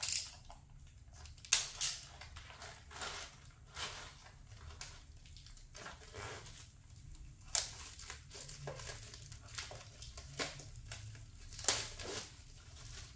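Plastic shrink wrap being torn and peeled off a book by hand: irregular crinkling and crackling, with a few louder crackles.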